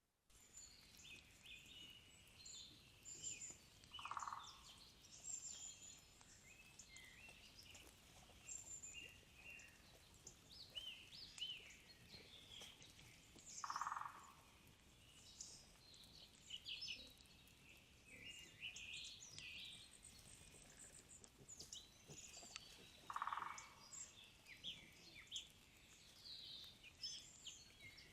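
Several songbirds singing together in a spring forest chorus, with overlapping high chirps and trills throughout. A lower, short note repeats three times, about every nine or ten seconds.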